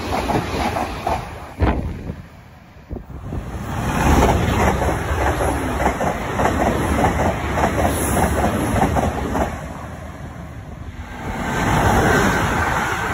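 Passenger trains passing close at speed, their wheels beating a rapid, even clickety-clack over the rail joints. The noise drops away briefly twice, and a steady high whine comes in near the end.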